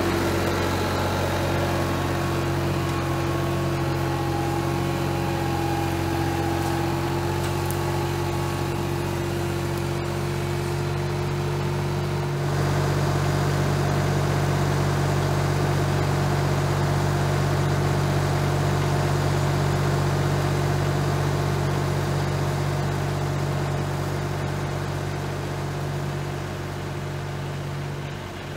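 Bad Boy 4035 compact tractor's diesel engine running steadily, driving a PTO stump grinder. It gets a little louder about halfway through and eases slightly near the end.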